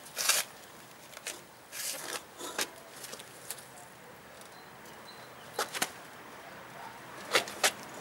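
Short scrapes and knocks of a soaped tyre bead being worked off a motorcycle wheel rim with a steel tyre bar and by hand, coming in a few scattered groups, the sharpest pairs in the middle and near the end.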